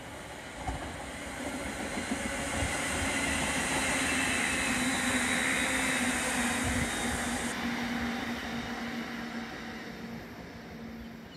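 A Class 350 Desiro electric multiple unit passing through without stopping: a rush of wheel and rail noise that builds to a peak about midway and fades as the train draws away, with a steady low hum beneath it.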